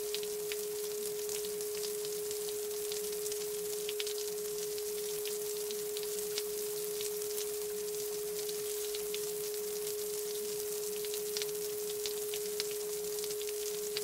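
A steady pure tone held at one unchanging pitch throughout, over an even bed of rain hiss with scattered small drop ticks.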